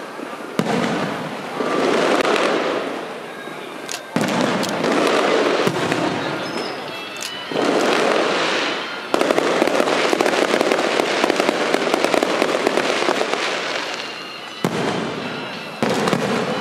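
Aerial fireworks bursting, about six sharp bangs a few seconds apart, each trailing off into long crackling. A dense stretch of rapid crackle runs through the middle.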